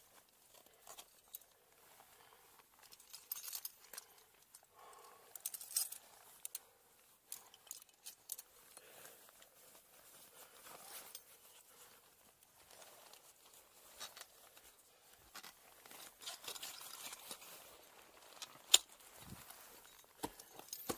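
Ice axe picks and crampon points striking and scraping into waterfall ice as a climber moves up, an irregular run of sharp strikes, with one much louder strike late on.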